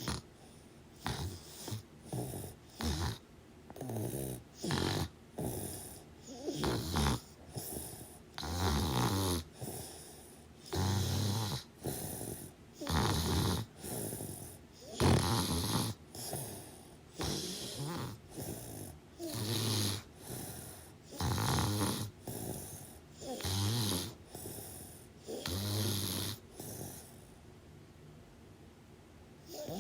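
Snoring: a steady run of rough, rasping snores, one about every second, that stops about three seconds before the end.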